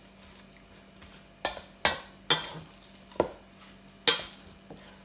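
Ground pork siomai filling being mixed by hand in a stainless steel bowl: quiet stirring, then about six sharp slaps of the mixture against the bowl, each with a brief metallic ring, starting about a second and a half in.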